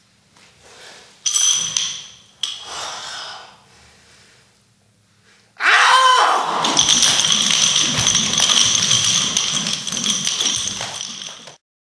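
Percussion soundtrack: two cymbal crashes that ring out, then a loud, sustained cymbal-and-drum roll that cuts off abruptly near the end.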